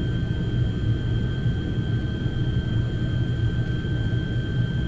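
Turboprop airliner engine running with its propeller turning, heard inside the cabin: a steady low drone with a thin, steady high whine above it.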